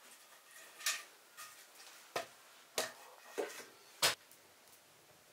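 Sounds of a meal: about six short clicks and taps, roughly one every half second to second, the loudest about four seconds in, like utensils or fingers against a dish.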